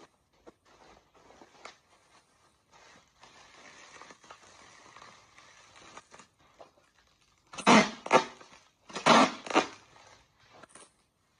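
Bubble wrap rustling and crackling as it is rolled and pressed around an item, with two louder bursts of crackling plastic near the end.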